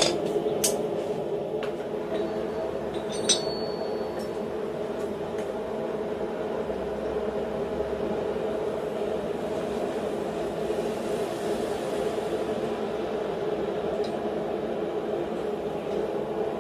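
Steady drone of a blacksmith's forge running, with a few sharp metal clinks in the first seconds and one more a little later, as steel tongs and stock knock against the steel bending jig.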